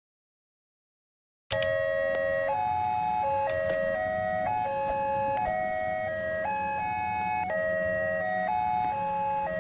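Electronic railway level-crossing warning siren starting about a second and a half in, sounding a repeating sequence of steady tones that step up and down between a few pitches, the signal that a train is approaching the crossing.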